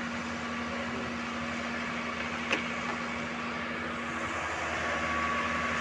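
Core drilling rig running steadily, drilling NQ-size core: a continuous mechanical hum with a constant low tone. A single short click about two and a half seconds in.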